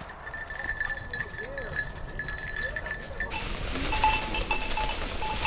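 A bird dog's collar bell ringing and jingling as the dog moves through the brush, its ring sustained at first and then coming in short repeated tinkles after a cut about three seconds in.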